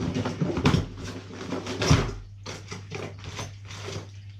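Rustling and knocking of packaging and small parts being handled out of a bike box, loudest in the first two seconds, then lighter rustles and taps. A steady low hum runs underneath.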